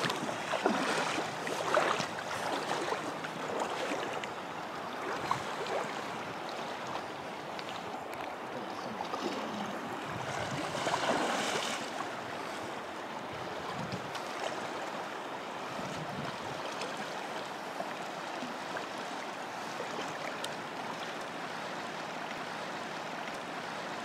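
Steady rush of flowing river water, with a louder stretch about eleven seconds in.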